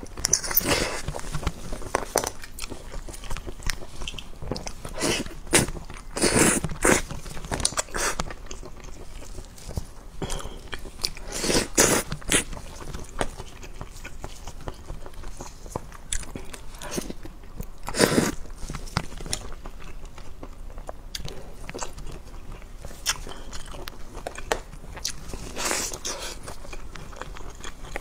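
Close-up sounds of a person biting and chewing spicy sauce-coated seafood: a steady run of small wet clicks, with louder bites about every six seconds.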